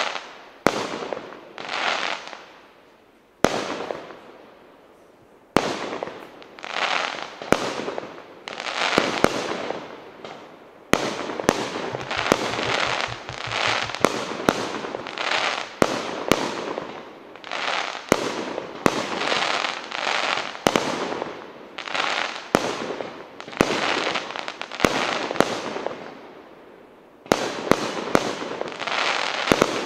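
Fireworks display: a rapid series of sharp shell bursts, each followed by a second or so of crackling from glittering stars, coming about once a second with a short lull about four seconds in.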